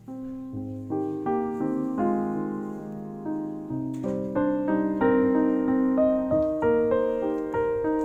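Background piano music: chords and a melody of struck notes that ring and fade, growing fuller about halfway through.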